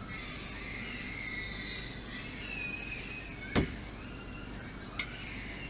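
Two short, sharp clicks about a second and a half apart as model kit parts are handled, over faint, high, wavering tones.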